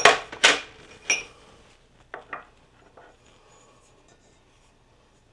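Metal ladle clinking against a stainless steel mixing bowl as cake batter is scooped out for ceramic ramekins: three sharp clinks in the first second or so, then two lighter ones about two seconds in.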